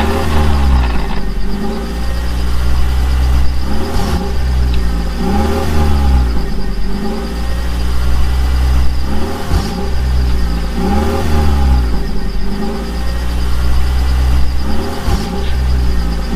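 A vehicle engine sound revving up and down in an even cycle, about every one and a half seconds, over a steady low drone and a thin high whine.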